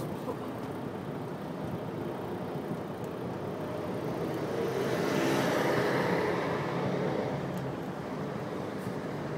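City road traffic at a junction, with a vehicle passing close by about halfway through, its noise rising and then fading away.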